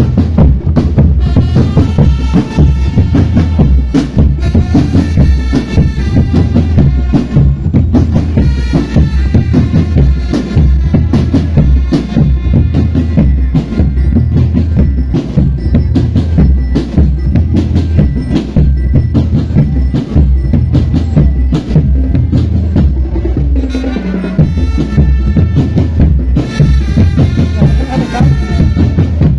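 Drum band playing: bass drums and snare drums beat a steady, heavy rhythm under a pitched melody.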